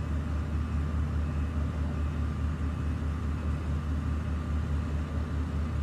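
Heavy engine running steadily, a deep even rumble with a fast pulse and a faint high whine above it.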